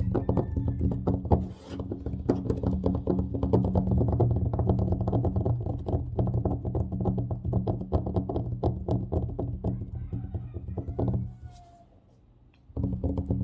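Fast, aggressive fingertip tapping on a table: a dense, rapid run of sharp taps with a thuddy low body. It stops for about a second near the end, then starts again.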